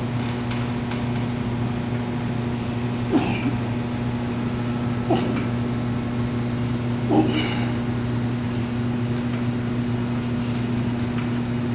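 A man grunting with effort as he pushes a chest press machine, short grunts about every two seconds, over a steady low hum.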